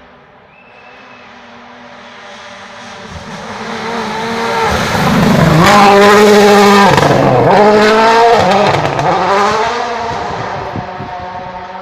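Rally car's turbocharged four-cylinder engine approaching flat out on a wet gravel stage, loudest as it passes about six seconds in. The engine note dips twice as the driver lifts and changes gear, then fades away into the distance.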